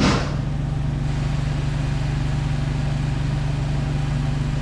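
A vehicle engine idling with a steady low hum. A brief rushing noise sounds at the very start.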